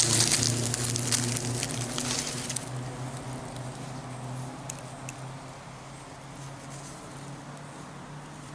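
Crunching and crackling of dry leaves and soil being handled, dense for the first two and a half seconds, then thinning to occasional faint rustles. A low steady hum sits underneath and fades away.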